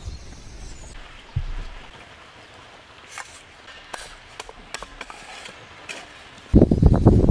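Handling noise from outdoor building work: a soft thump about a second and a half in, scattered light clicks, then near the end a sudden loud burst of crunching and scraping.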